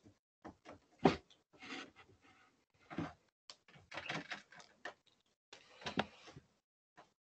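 Irregular clicks, knocks and short rustles, as of handling things at a desk, picked up by a video-call microphone that cuts out to silence between them; the sharpest knock comes about a second in.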